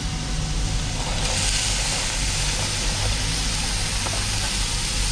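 Meat sizzling on a Weber Q portable gas grill, a steady hiss that grows a little brighter about a second in, over a steady low hum.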